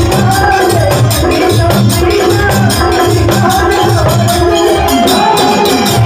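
Live Hindu devotional kirtan (bhajan) music: electronic keyboards and a dholak drum keep a steady beat under a jingling, shaker-like percussion, with a man singing.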